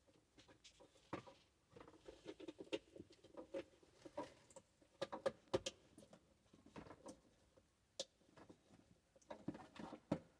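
Light clicking and rustling of plastic wiring-harness connectors being handled and pushed onto a car's ECU, with a sharper click about eight seconds in.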